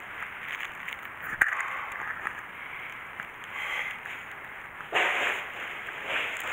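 Plastic stretch-wrap crinkling and rustling close to the microphone as a wrapped bundle is handled, with a sharp click about a second and a half in and a louder rustle about five seconds in.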